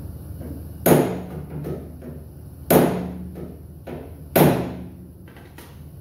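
A hammer striking the jeep's steel body metal: three hard, ringing blows about one and a half to two seconds apart, with a few lighter knocks between them.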